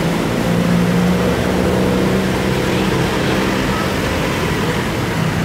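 A motor vehicle's engine running close by, a steady hum over street traffic noise.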